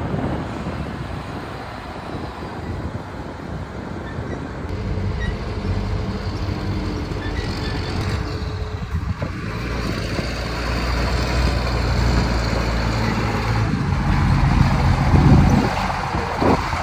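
Heavy diesel earthmoving machinery running at a worksite. The engine drone gets steadier and louder in the second half, and there are a few short knocks near the end.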